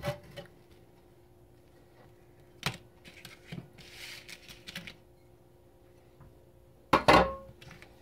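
Dishes and food being handled and set down on a wooden kitchen countertop: a few light clicks and knocks, a brief rustle midway, and a louder knock with a short ring about seven seconds in, over a faint steady hum.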